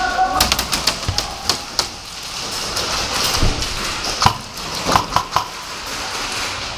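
Sharp cracks and taps of indoor airsoft play: gunfire and BBs striking plywood walls. A quick scatter of them in the first two seconds, then a few more single hits later on.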